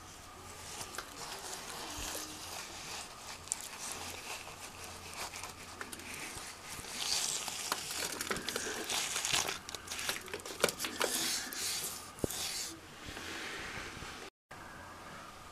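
Wet, gritty mortar being pressed and smeared by hand into the joint between a PVC window frame and a concrete opening: soft crunching and scraping with many small clicks, busiest and loudest in the middle.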